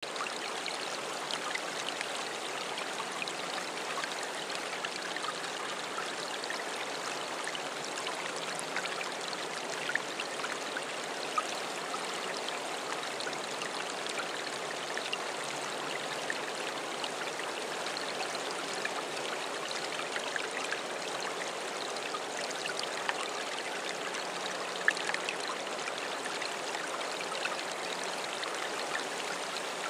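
Steady rushing of running water, with a few small clicks here and there.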